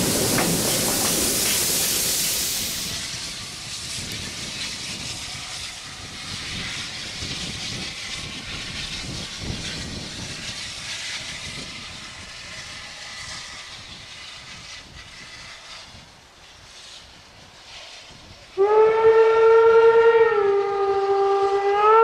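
German steam locomotive passing close by with a loud hiss and rumble, then the distant double-headed steam train running faintly. Near the end a loud steam whistle blows for about three and a half seconds, dipping slightly in pitch partway through and rising again as it ends.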